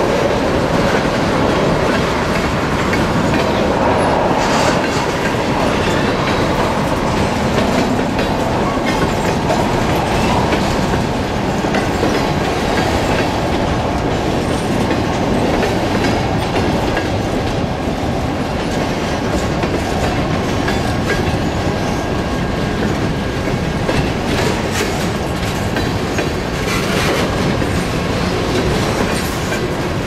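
Mixed freight train of boxcars, tank cars and covered hoppers rolling past: a steady, loud rumble of steel wheels running on the rails.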